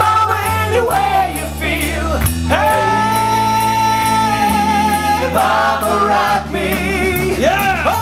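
Live country-rock band playing, with several voices singing together over acoustic guitars and bass guitar. About two and a half seconds in, the voices hold one long note for a couple of seconds before moving on.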